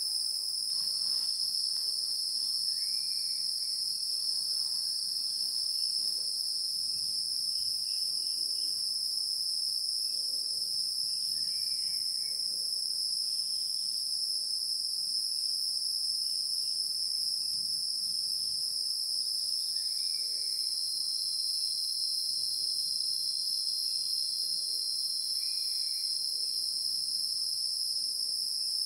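Steady chorus of insects, a continuous high-pitched trill that holds at an even level, with a few faint short calls lower down every several seconds.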